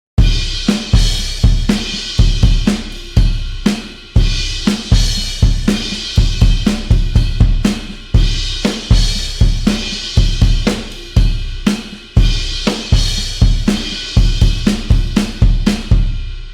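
Rock drum groove played on the EZdrummer 3 Classic Rock EZX sampled drum kit: kick, snare and hi-hat, with a heavy cymbal crash about every four seconds. It starts abruptly and ends on a last hit left ringing.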